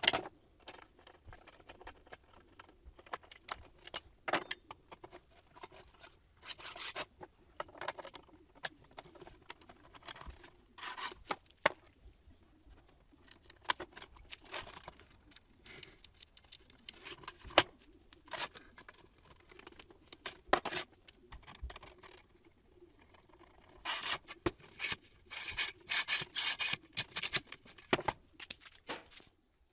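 Tools and parts being handled on a workbench: scattered clicks, knocks and short scraping bursts, thickest near the end, over a faint steady hum.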